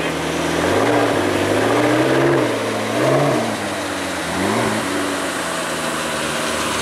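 Ferrari Maranello's V12 engine moving off at low speed, the pitch rising and falling with a few light throttle blips, then settling to a steadier low running.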